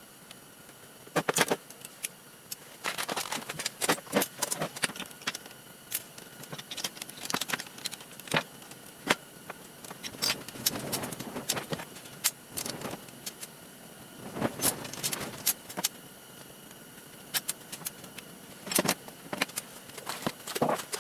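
Irregular clicks, taps and light metallic clattering of parts being handled and pried apart while a Hart power saw is taken to pieces for scrap.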